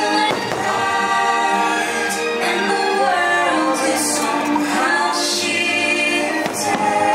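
Fireworks-show soundtrack: orchestral music with a choir singing, with about five sharp crashes spread through it.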